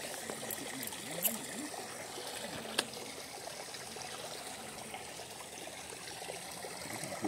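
Water trickling and splashing steadily from a small concrete drain outlet into a ditch, with two faint clicks in the first three seconds.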